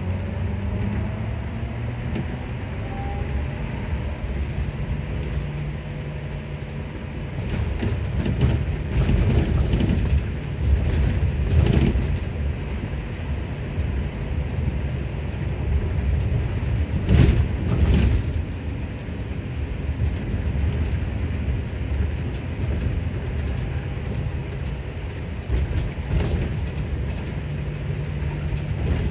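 Electric bus traction motor whining, rising in pitch for the first few seconds as the bus gathers speed, heard from inside the cabin over a steady low hum and road noise. Twice in the middle the rumble swells louder for a few seconds.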